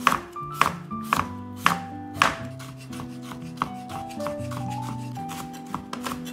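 Kitchen knife cutting cucumber and green onion on a wooden cutting board: five sharp chops about half a second apart, then quicker, lighter cuts near the end.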